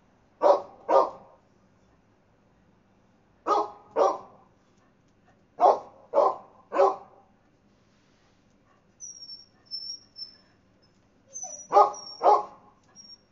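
A dog barking in short bursts of two or three barks, nine barks in all. A thin, high squeaky chirping comes in near the end.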